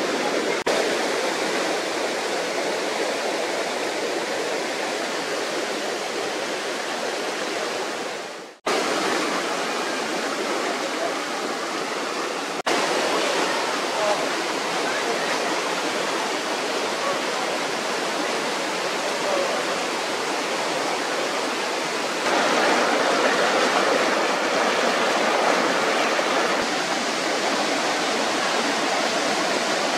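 Rushing water of a rocky stream cascading over stones, a steady loud hiss of white water. It cuts out for a moment about eight and a half seconds in and gets a little louder after the later cuts.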